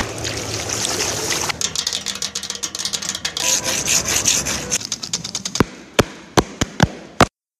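A hand scratching and rubbing gravel close to a microphone: a rough scraping with thick crackling from about one and a half seconds in. The crackling thins to a handful of sharp separate clicks, and then the sound cuts off abruptly near the end.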